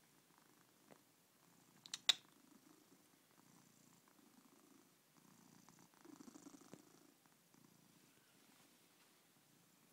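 Domestic cat purring up close, a faint low purr that swells and pauses with each breath. A single sharp click sounds about two seconds in.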